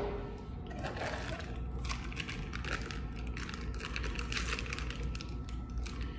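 Clear plastic packaging crinkling and rustling as it is handled and unwrapped by hand: a dense, irregular run of small crackles, over a low steady hum.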